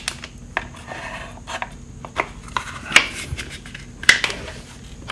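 A case saver cover being handled and fitted against a motorcycle engine's side case: about five sharp clicks and knocks with some rubbing in between.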